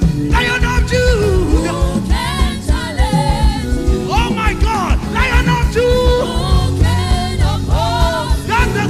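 Live gospel worship music: a singer's voice with wavering, sliding pitch over a full band with a steady beat.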